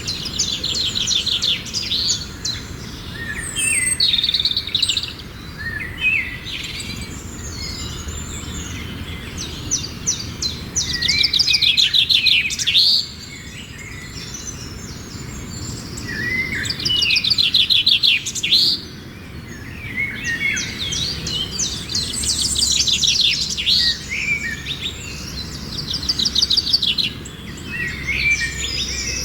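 Songbird singing: phrases of rapid high chirps and trills every few seconds, with short pauses between them, over a low steady background rumble.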